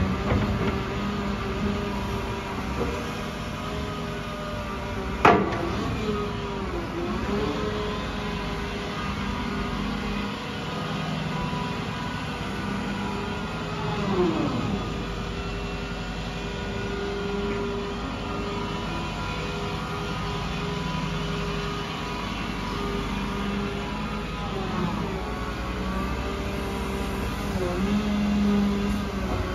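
Cat MH3022 material handler's diesel engine running steadily, with its tone dipping and recovering several times as the boom, stick and grab hydraulics are worked. One sharp clunk about five seconds in.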